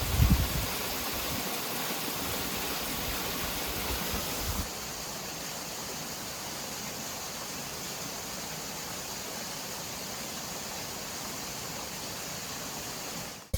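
Steady rushing noise with no tones in it, with a few low rumbling gusts at the start. It steps down a little in level about four and a half seconds in.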